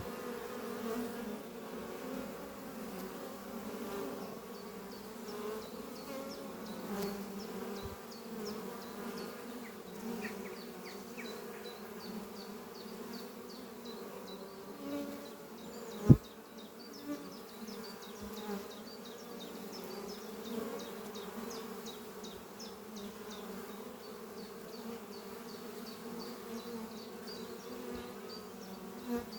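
Honeybees buzzing steadily as many workers fly in and out at the hive entrance, a continuous hum of overlapping wingbeats. A single sharp tap cuts through about halfway.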